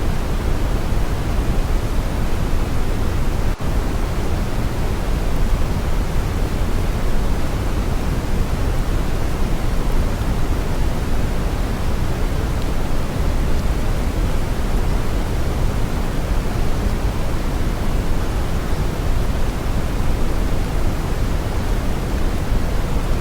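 Brown noise: a steady, even hiss weighted heavily toward the low end, with one momentary dip in level about three and a half seconds in.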